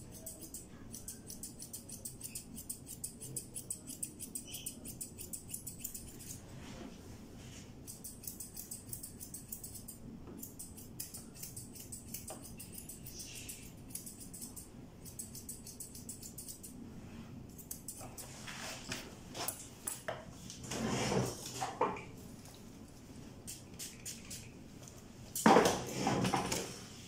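Curved grooming scissors snipping through a cat's fur: runs of quick, light metallic clicks. In the last third come a few louder, longer noises, the loudest shortly before the end.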